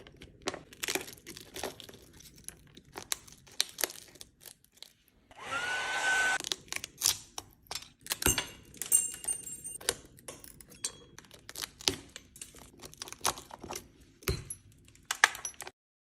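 Tools tapping and clicking on an iPhone 13 Pro Max's cracked back glass, breaking it up for removal, in many sharp taps. About five seconds in, a small blower runs for about a second with a rising whine as it spins up.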